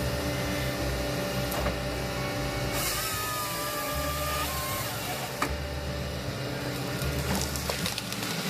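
Wood harvester at work: its engine runs steadily while the harvester head saws and handles timber, with a short whining glide about three seconds in. Background music plays underneath.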